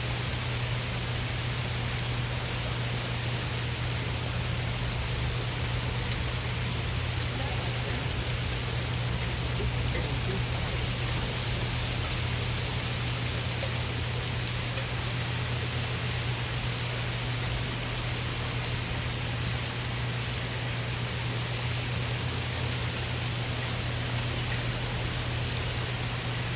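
Steady rain pouring down during a thunderstorm, an even hiss, with a constant low hum underneath.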